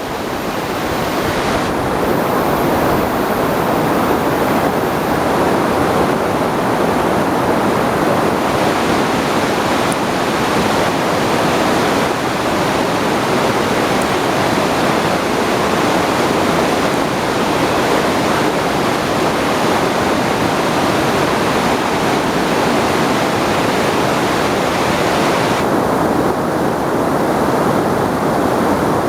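Waterfall and rapids rushing loudly and steadily, with a slight drop in the hiss near the end.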